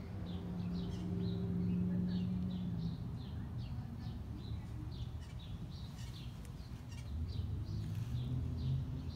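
Small birds chirping in a quick, steady series of short high chirps, over a low background rumble with a steady low hum for the first few seconds.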